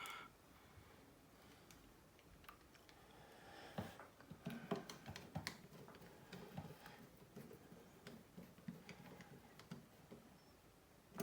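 Faint, scattered clicks and light taps of small phone parts and tools being handled during a phone repair, a little busier in the middle.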